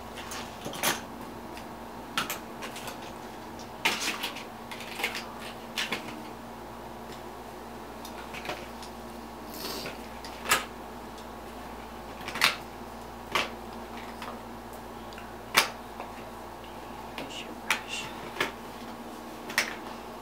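Scattered light clicks and taps of makeup cases, palettes and tools being handled, about twenty at irregular intervals, some in quick pairs, over a steady low electrical hum.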